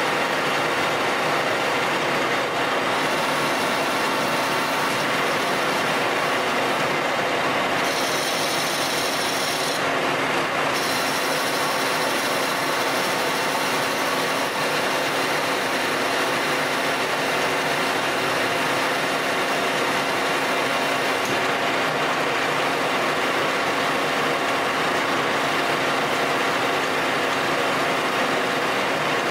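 Colchester Master 2500 metal lathe running steadily, its tool cutting a round workpiece held in the chuck: a continuous hiss of the cut over the steady hum of the machine.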